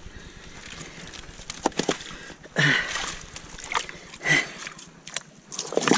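Hands rummaging through wet kelp and shifting stones in shallow seawater: sloshing and splashing with a few sharp knocks. The loudest moments come about two and a half and four seconds in.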